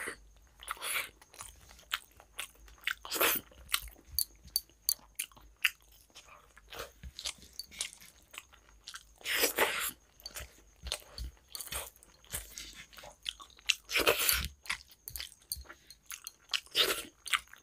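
Close-miked wet chewing and mouth sounds of someone eating rice and curry by hand: smacks and clicks throughout, with a few louder, longer smacks now and then.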